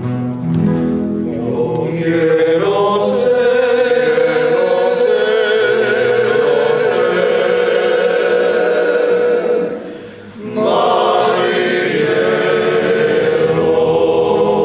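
Background music: a choir singing a slow song in long held notes with vibrato. The singing dips briefly about ten seconds in, then the voices come back.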